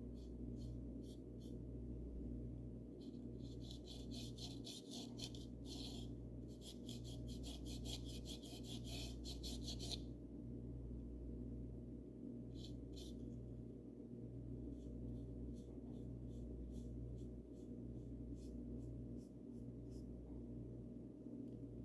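Paintbrush bristles stroking paint onto a wooden birdhouse: quick scratchy strokes, busiest in the first half, then sparser, over a steady low hum.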